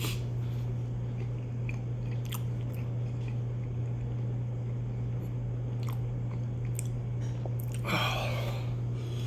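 A person chewing and biting food, with scattered small crunchy clicks and a short louder rustle near the end. A steady low hum runs underneath.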